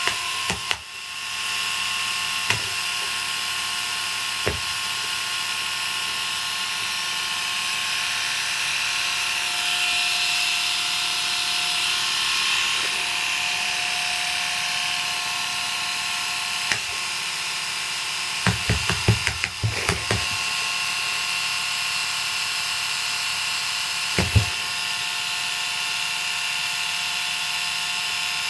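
Small handheld electric shaver motor running steadily, a constant buzzing whine with a slight swell in the middle. It is broken by occasional sharp knocks, with a quick flurry of them about two-thirds of the way through.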